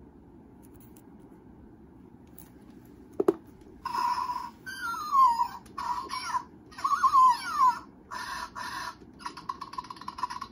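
Zhu Zhu Pets Patches toy hamster's electronic voice: a click about three seconds in, then a run of squeaks, falling chirps and quick chatter in short bursts from its little speaker, set off by a press on its nose.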